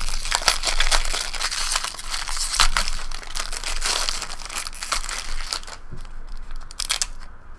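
Crinkly silver wrapping being handled and pulled open by hand: a dense run of crinkling and crackling that thins out over the last couple of seconds.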